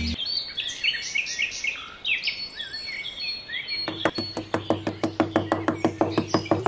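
Birds chirping and twittering in many short, quick calls. About four seconds in, a fast, even ticking beat of about five ticks a second starts under them, with a low steady tone, like background music.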